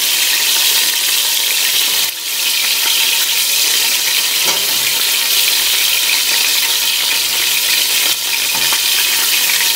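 Flour-dredged chicken pieces sizzling steadily as they flash-fry in hot lard in a stainless steel pot. A few faint clicks come through the sizzle.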